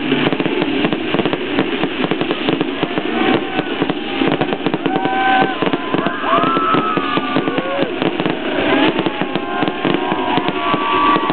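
Dense, continuous crackling of crackle-star ('popcorn') fireworks: a rapid, unbroken stream of small pops. Voices call out over it in the second half.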